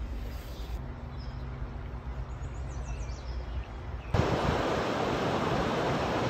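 River water rushing steadily over a rocky riffle, starting abruptly about four seconds in and much louder than what comes before. Before it there is a quieter stretch of riverside ambience with a faint low hum and a few faint bird chirps.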